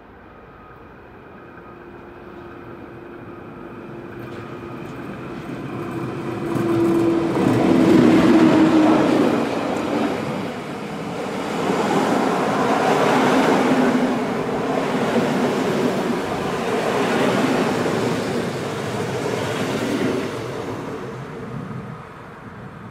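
Rhaetian Railway Ge 4/4 II electric locomotive hauling a rake of passenger coaches past the platform. It builds as it approaches and is loudest, with a steady hum, as the locomotive goes by about a third of the way in. The coaches then roll past on the rails, and the sound fades near the end.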